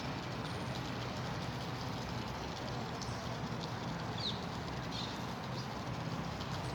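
Steady rush of running water with a few short, high bird chirps over it, about four and five seconds in.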